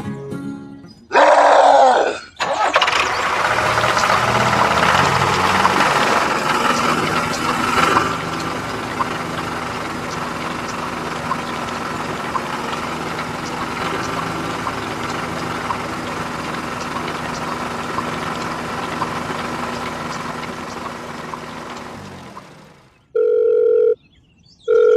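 Engine sound starting with a short loud burst about a second in, then running steadily for about twenty seconds before fading out. Two short electronic beeps follow near the end.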